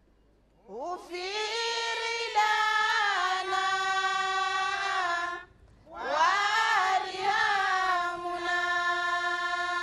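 A woman's voice chanting deba, the unaccompanied Islamic devotional singing of Mayotte. It comes as two long, drawn-out melismatic phrases, each sliding up in pitch at its start, with a short break between them about halfway through.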